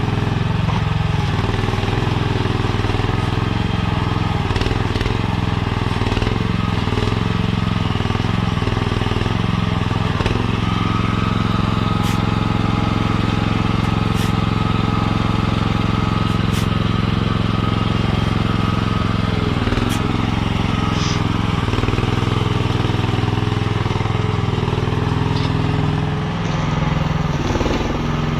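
Mini skid steer's small engine running steadily while it hauls loads of sand. A thin steady whine comes in for several seconds in the middle, and a few sharp clicks sound throughout.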